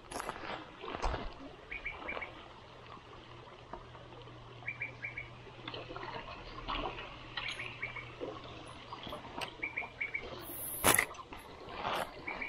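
A bird repeating a short call of three or four quick high notes, several times over, with scattered sharp clicks and one loud click near the end.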